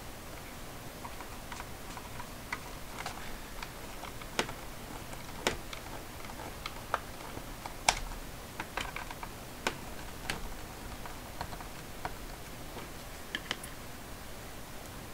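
Scattered, irregular light clicks and taps of a plastic graphing-calculator case and a small screwdriver being handled on a tabletop, the sharpest click about eight seconds in.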